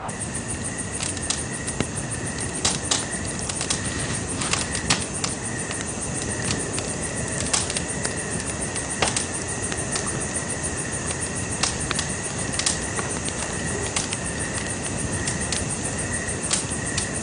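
Campfire crackling with irregular sharp pops, over a steady high chirring of crickets.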